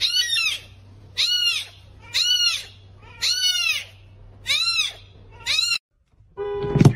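Very young kitten mewing: six high-pitched cries, about one a second, each rising then falling in pitch. Near the end a short, lower-pitched sound ends in a loud thump.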